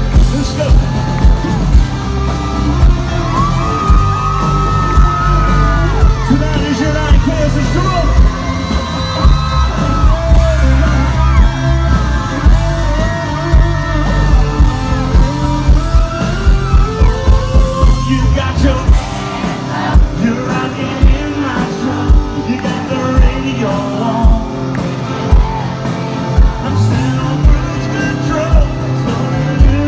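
A live country band plays loud through a concert sound system with a steady kick-drum beat. Singing and yells from the crowd run over it.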